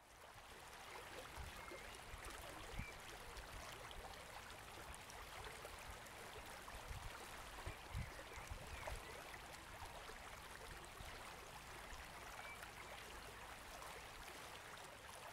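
Faint, steady rush of a shallow, fast-flowing stream running over its bed, fading in over the first second.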